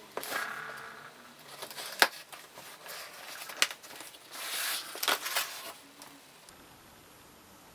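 Cardboard box being opened by hand: the end flap is folded back and the inner cardboard tray with its packing slides out, with scraping and rustling and two sharp knocks, about two seconds in and a second and a half later. The handling stops and it goes quiet near the end.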